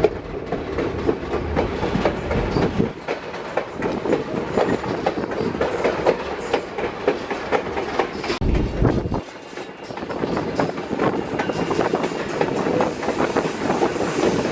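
White Pass & Yukon Route passenger train rolling along the track, heard from aboard: a steady rumble with wheels clicking and clattering over the rails. A brief low rumble swells up about eight and a half seconds in.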